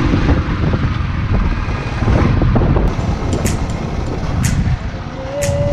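Royal Enfield Bullet's single-cylinder engine running under way, mixed with heavy wind rush on the microphone. From about three seconds in, sharp ticks come in, and near the end a steady tone enters as background music fades in.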